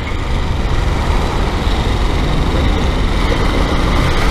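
Motorcycle engine running at low speed while filtering between cars in slow traffic, with steady road and traffic noise and a low rumble from surrounding vehicles.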